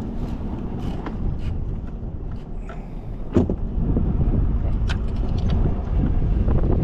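Wind buffeting the microphone on a small boat, a low rumble that grows louder about three and a half seconds in, with a few sharp knocks and clicks from gear being handled.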